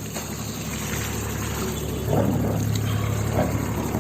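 A single-cylinder air compressor running steadily, driving a borewell air-lift pump, with water splashing and pouring from the outlet. It grows a little louder about halfway through.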